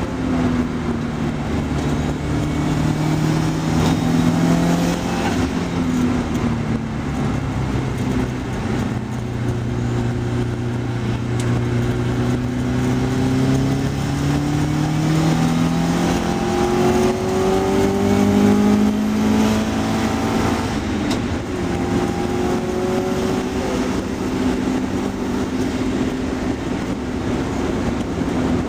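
Car engine heard from inside the cabin, driven hard around a race circuit. The revs climb in long pulls and drop back at gear changes and lifts, over steady road and wind noise.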